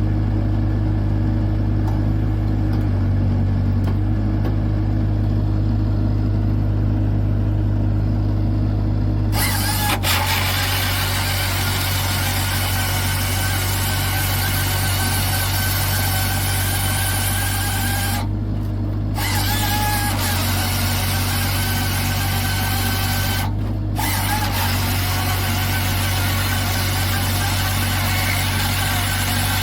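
A carrier machine's engine runs steadily with a low hum. About nine seconds in, a loud hissing machine noise from the timber processor joins it, cutting out briefly twice.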